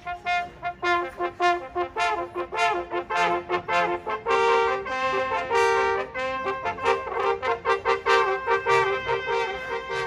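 Brass hunting horns playing a fanfare in harmony: quick short notes at first, then longer held chords from about halfway through.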